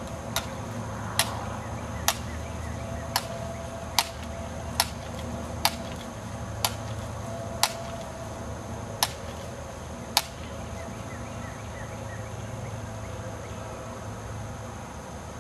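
Eleven sharp clicks from a BB gun, roughly one a second, stopping about ten seconds in.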